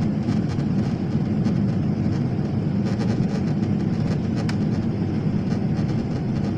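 Steady low rumble of jet engines and rushing air heard inside an Emirates airliner's cabin as it climbs out after takeoff, with a few faint clicks.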